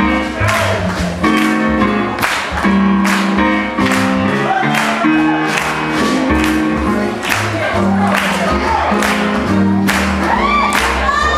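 Dance music with singing over a steady beat of about two beats a second.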